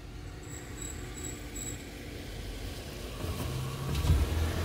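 A steady low engine-like hum that comes in about three seconds in, with a single sharp knock near the end and faint high-pitched beeps in the first two seconds.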